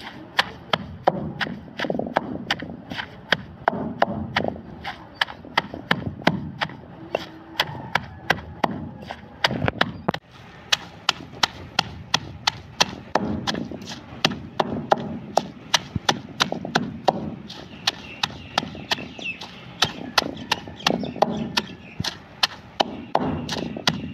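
Stone pestle pounding fresh mint leaves in a stone mortar: steady, regular knocks, about two to three a second.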